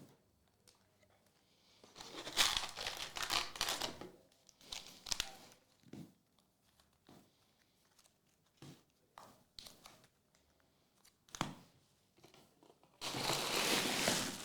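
Trading card pack wrappers being crinkled and torn open. There is a spell of rustling about two seconds in, a few short sharp crackles after it, and a louder, longer rustle near the end.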